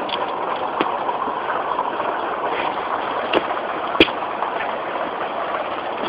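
Steady rushing noise, with a few light knocks and one sharper knock about four seconds in.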